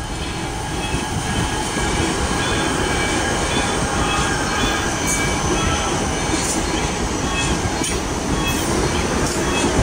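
A Siemens 3000-series electric multiple unit running past a station platform at speed: a steady rush of wheels on rail that grows louder as the train draws level. Thin high steady squealing tones sit over the rush, and a few sharp clicks of wheels over rail joints come in the second half.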